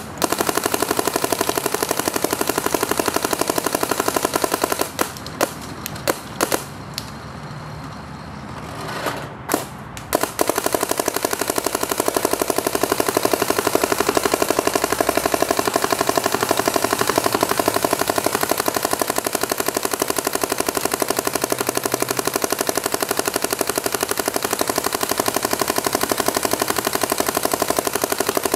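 Smart Parts Shocker RSX electropneumatic paintball marker firing rapid, continuous strings of shots on compressed air. The firing breaks off about five seconds in, leaving a few scattered single shots for several seconds, then resumes as unbroken rapid fire about ten seconds in.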